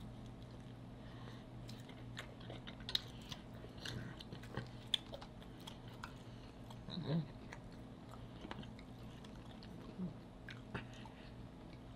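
Two people chewing and biting into sauced fried chicken wings, with many small clicks and crackles scattered throughout. A steady low hum runs underneath.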